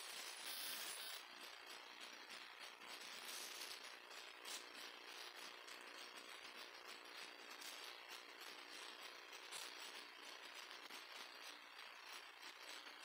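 Near silence: a steady hiss with a few faint clicks.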